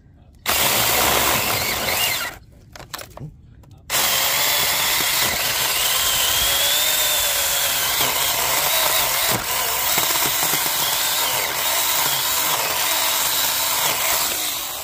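Cordless mini chainsaw running and cutting through small tree stems at ground level. It runs for about two seconds, stops, gives a few short blips, then runs steadily for about ten seconds with a wavering high whine before stopping near the end.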